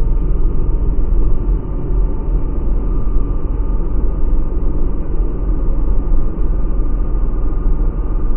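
Jet boat with a 230 hp engine running steadily at speed: a constant deep rumble of engine and rushing water, with a faint steady whine.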